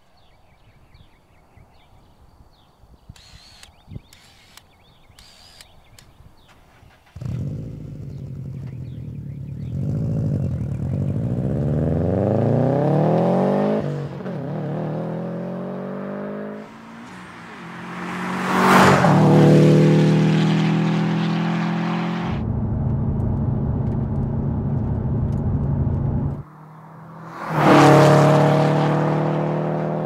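2015 Subaru STI's turbocharged 2.5-litre flat-four running through a stainless steel 3-inch turbo-back exhaust. About seven seconds in, the engine comes in accelerating with rising revs. It then passes by loudly at speed twice, its pitch dropping as it goes by.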